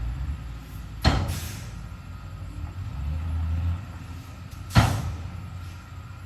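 Heavy earthmoving machinery at work: a diesel engine running low and steady, briefly louder around three seconds in, with two sharp metallic clanks that ring briefly, about a second in and near five seconds in.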